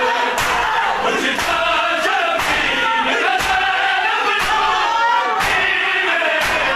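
Crowd of men chanting a noha in unison while beating their chests together (matam), a massed slap landing about once a second.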